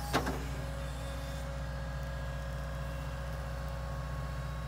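Excavator's diesel engine running with a low, steady drone.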